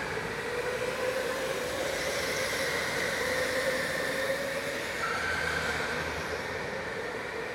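Electric go-kart motor whining at speed over a steady rushing hiss. The whine rises and falls a little in pitch as the kart speeds up and slows.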